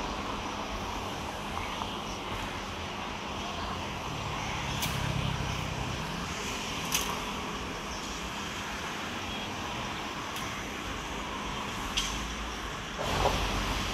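Road traffic on a city street: a steady hum of passing cars, with a few sharp clicks and a louder rush near the end.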